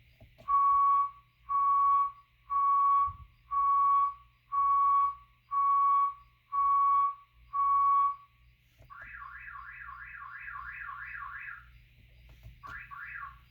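DIY electronic car horn sounding a sequence of tones: eight short, even beeps at one pitch, about one a second, then a fast warbling chirp that runs for nearly three seconds, and a brief second burst of the chirp near the end.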